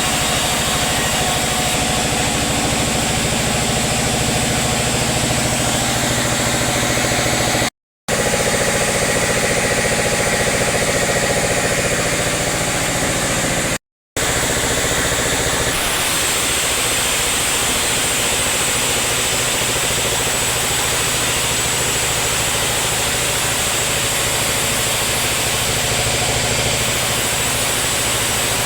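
Sawmill machinery running steadily with an engine-like drone. It drops out twice for a moment, and its tone shifts a little a little over halfway through.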